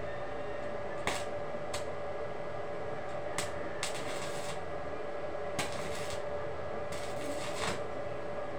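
Steel parts of a square-bar and steel-matting plant rack being handled and fitted together by hand: a few sharp metal taps and several short scrapes, over a steady hum.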